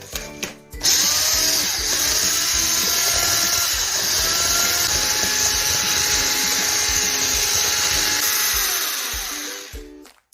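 Electric hand mixer running steadily, starting about a second in and stopping near the end, with background music underneath.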